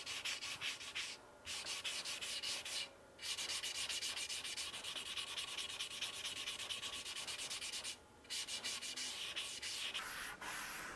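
Foam-backed sanding block, roughly 100 grit, rubbed by hand in quick back-and-forth strokes along the edge of a wooden Telecaster guitar body, rounding over the hard edge of the arm-carve bevel. The strokes stop briefly three times, a little after one second in, near three seconds and near eight seconds.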